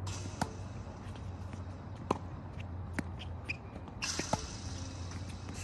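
Tennis balls struck by rackets and bouncing, four sharp pops spread over a few seconds, with shuffling footsteps and a brief shoe squeak on the court.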